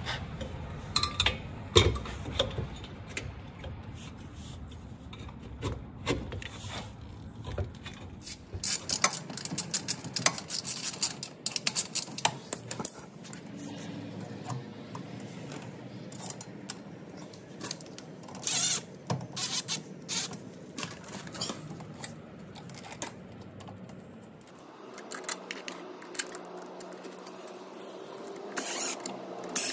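Irregular clicks, taps and rattles of nuts, bolts and a steel hitch bracket being fitted by hand to a quad's rear frame, with a few short louder bursts, one near the end.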